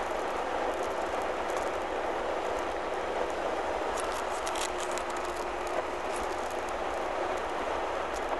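Steady road noise of a vehicle driving on wet pavement, heard from inside the cab: tyre hiss over a low engine rumble, with a brief cluster of faint ticks about four seconds in.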